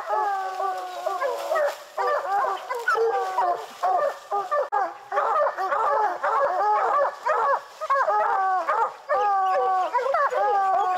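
A pack of bear hounds baying and barking over one another without a break, some long drawn-out bawls mixed with many short chop barks: hounds barking treed at the base of the trees, the sign of a treed bear.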